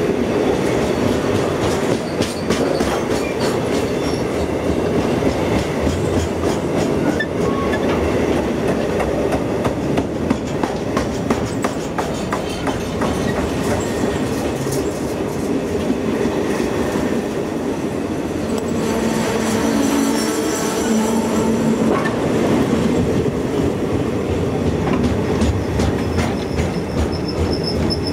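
Container freight wagons rolling past at close range: a steady rumble with the clickety-clack of wheels over rail joints. About two-thirds of the way through, and again near the end, steel wheels squeal in whining tones over the rumble.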